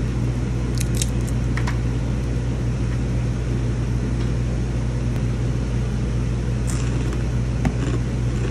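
Steady loud drone of commercial kitchen ventilation with a deep, unchanging hum underneath, and a few light clicks and clinks about a second in and again near the end.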